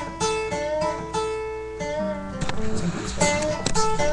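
Acoustic guitar playing a repeating riff of picked notes, with a lower note about halfway through.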